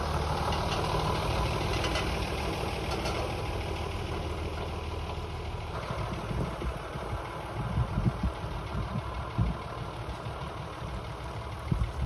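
Engine of a Jeep Grand Cherokee running at low speed as it pulls away towing a trailer-mounted aerial work platform. A steady low hum, with a few irregular low knocks and bumps in the second half.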